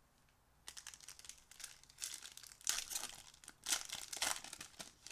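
Foil wrapper of a Topps 2020 Update Series baseball card pack crinkling and tearing as it is handled and ripped open by hand. It starts about a second in and comes in irregular crackling bursts, loudest in the middle.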